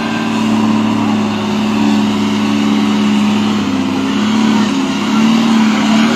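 Truck engine running close by: a steady hum that wavers up and down in pitch a few times in the second half.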